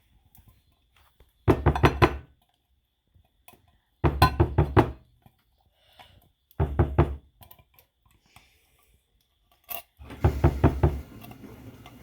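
Condensed cream of mushroom soup being knocked and scraped out of cans into a mixing bowl, in four short bursts of rapid thunks with pauses between.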